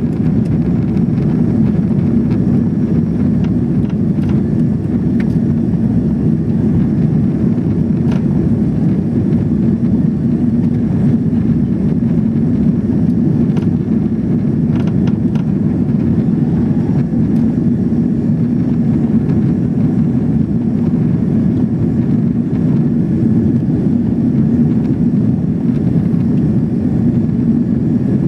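Steady cabin noise inside an Airbus A340-600 in its climb after takeoff: a deep, even rumble of its four Rolls-Royce Trent 500 engines and the rushing air, unchanging throughout.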